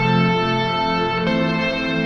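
Background music with sustained chords, changing chord about a second in.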